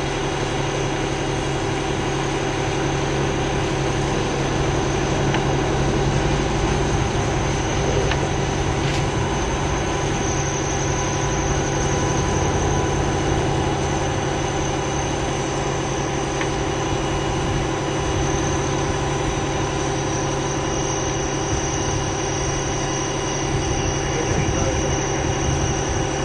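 Heavy diesel engine running at a steady idle: a continuous low drone with constant tones above it, unchanging throughout.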